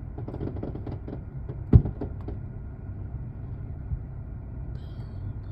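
Distant fireworks display: a run of crackles, then a loud boom about two seconds in, followed by a few smaller pops, over a steady low rumble.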